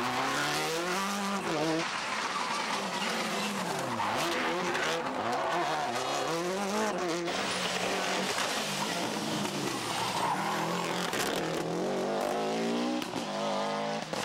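Subaru Impreza rally cars' turbocharged flat-four engines revving hard at full attack on a tarmac stage. The engine note climbs and drops again and again as they shift and lift for corners, with a fast climb near the end.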